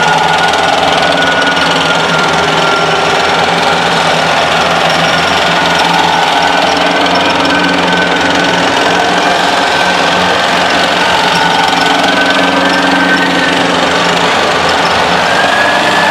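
Column of M109 tracked self-propelled howitzers driving past close by: loud, continuous clatter of steel tracks over the road with the diesel engines running under it, and a thin high whine wavering above.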